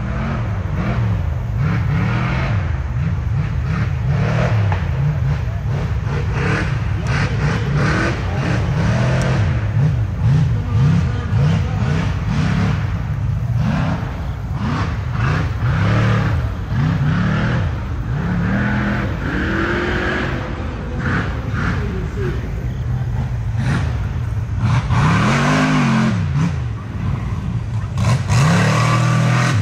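Rock racing buggy engine revving hard and repeatedly on and off the throttle, its pitch rising and falling every second or so, with scattered sharp knocks throughout.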